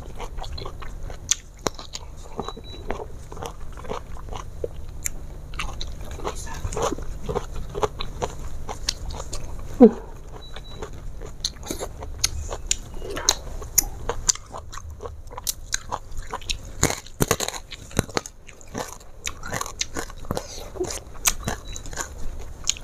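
Close-miked eating: chewing and biting food, with many short crunches and mouth clicks.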